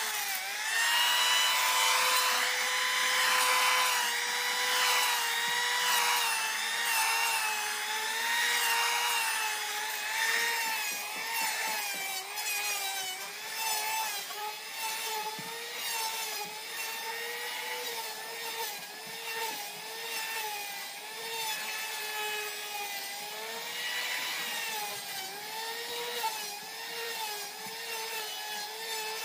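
Handheld electric planer shaving the edge of a wooden plank: the motor spins up at the start, then whines steadily over the hiss of the cutting blades, its pitch dipping and recovering as the blades bite along the board.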